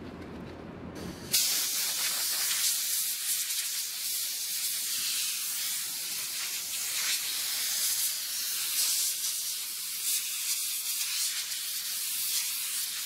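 Compressed-air blow gun hissing steadily as it blows sawdust out of the grooves of a stripped wooden panel. The hiss starts suddenly about a second and a half in.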